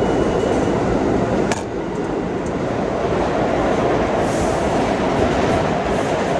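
New York City subway train (1 line) running at the platform, a steady loud rumble of the cars on the track. A single sharp click sounds about one and a half seconds in.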